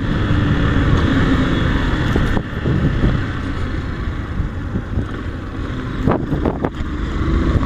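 Yamaha YS Fazer 150's single-cylinder engine running on the move, with wind noise on the microphone.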